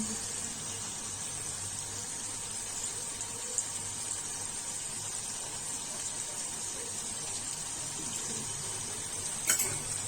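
Chana masala (chickpea curry) sizzling and simmering in a pan on the stove: a steady hiss, with a couple of faint clicks.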